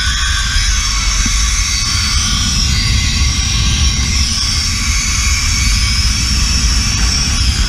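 Zipline trolley pulleys running along the steel cable with a steady high whir, over a heavy rumble of rushing wind on the microphone.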